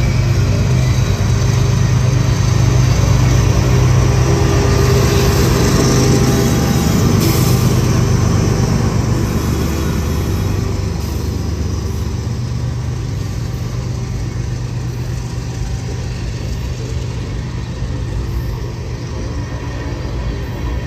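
Norfolk Southern freight train rolling past: a steady low rumble with a hum, loudest a few seconds in and then slowly easing off.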